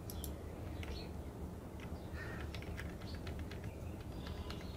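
Faint computer mouse clicks scattered over a steady low background hum, as a shape is clicked and dragged on screen.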